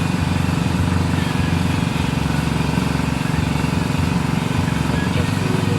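Isuzu Traga pickup's engine idling steadily with a low rumble.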